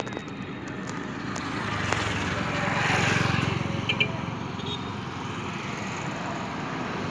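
Motor vehicle engine running with rushing wind noise, growing louder about three seconds in, with a short high chirp about four seconds in.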